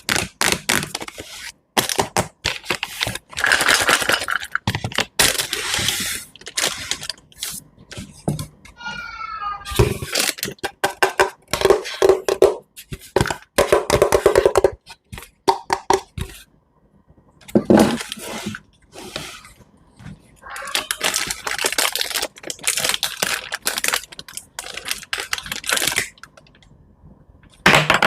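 Knife cutting through crisp fruit and vegetables: crunching and cracking in quick, irregular bursts with short pauses, and a brief squeak about nine seconds in.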